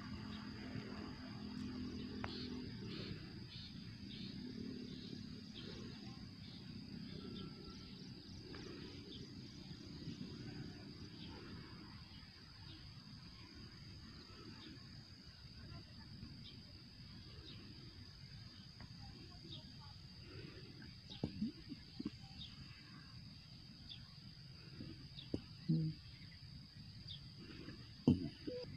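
Open-air ambience: a steady high-pitched insect drone over a low, even rumble, with scattered faint chirps. A few short knocks come in the last several seconds.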